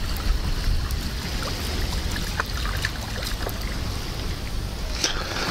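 Wind rumbling on the microphone, with a few light clicks from a spinning reel being handled.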